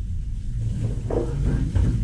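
Steady low rumble of kitchen background noise, with faint clattering about a second in.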